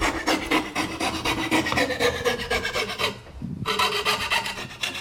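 Hand saw with a thin, flexible Magic Saw rod blade cutting through a 2x4 studded with steel carpenter nails, in fast, even back-and-forth rasping strokes. The strokes stop briefly a little past three seconds in, then start again.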